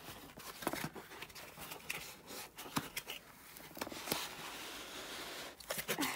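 Cardboard packaging being opened by hand: scattered scrapes, rustles and light knocks of cardboard as a box is worked open and an inner box is slid out.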